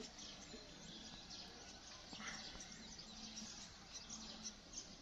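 Quiet outdoor ambience with faint bird chirps.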